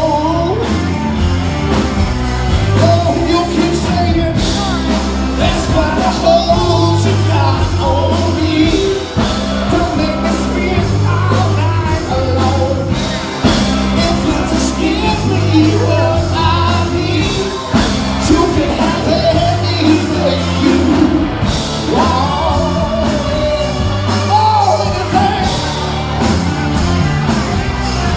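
Live rock band playing a song loud and without a break, with a singer's voice over guitars, bass and drums.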